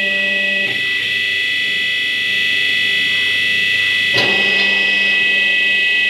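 Semi-hydraulic paper plate machine running its automatic cycle: a steady high whine from the hydraulic power pack under a lower hum. The hum drops out under a second in and returns with a sharp clunk about four seconds in as the press cycles.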